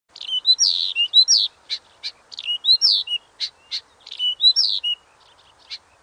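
Small songbird singing a fast, varied song of whistled notes and sharp chips, repeating a similar short phrase three times, then thinning to a few separate chips near the end.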